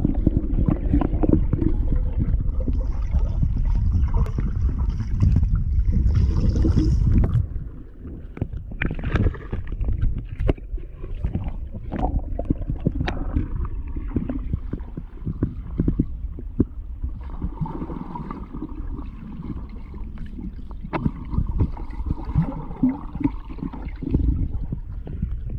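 Underwater sound of a dog diving and paddling: muffled churning and gurgling water, louder for the first seven seconds or so, then quieter, with scattered sharp clicks and knocks as it works along the stony bottom.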